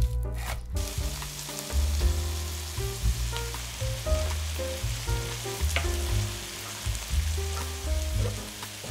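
Chicken strips and sliced vegetables sizzling steadily in a stainless steel sauté pan, over background music with a stepping bass line. A knife cuts through on a wooden board just before the sizzling starts.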